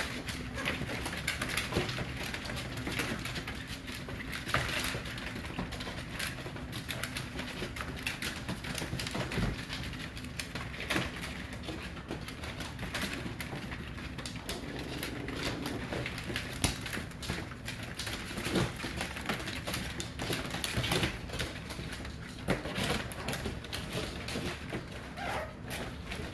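A litter of young American bully puppies squeaking and grunting, a scatter of short soft calls, over a low steady hum.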